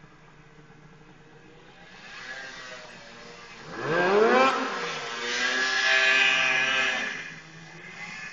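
Snowmobile engine revving in powder. It is faint at first and builds, sweeps sharply up in pitch about four seconds in, stays loud for a few seconds, then fades away near the end.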